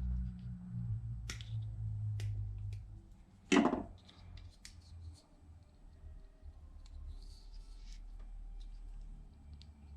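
A few sharp snips of a cutting tool going through braided speaker wire. The loudest snip comes about three and a half seconds in. A low hum runs underneath and fades after about three seconds.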